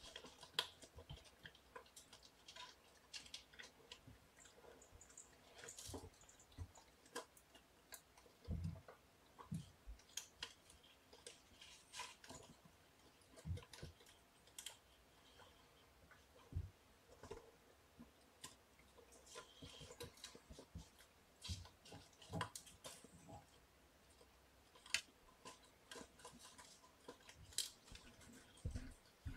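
Near-quiet room with faint, irregular clicks and light taps of kittens moving and playing about the floor, a few slightly louder knocks among them.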